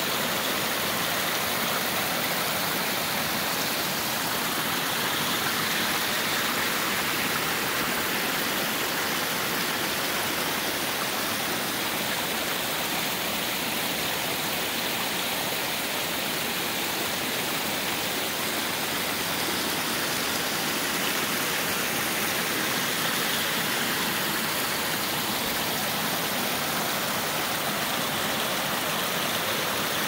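Small woodland waterfall and brook pouring and splashing over mossy rocks in a steady rush of water, running full after days of heavy rain.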